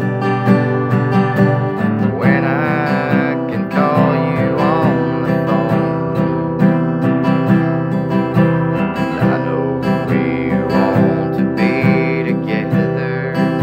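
Acoustic guitar strumming a country song in a steady rhythm, with a man's voice singing over it in places.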